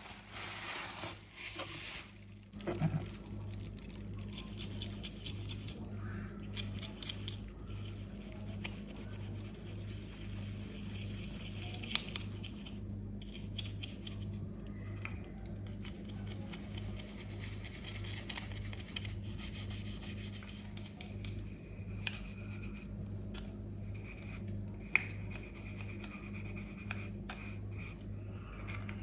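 Rubbing and scrubbing on a washing machine's surfaces during cleaning, with a couple of sharp clicks. A steady low hum pulses about twice a second underneath.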